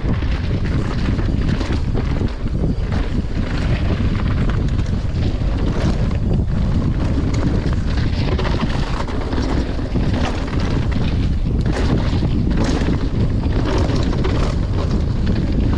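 Wind buffeting a helmet camera's microphone at speed, over the clatter of a downhill mountain bike running over a rough rocky trail, with frequent sharp knocks from tyres, chain and suspension hitting rocks.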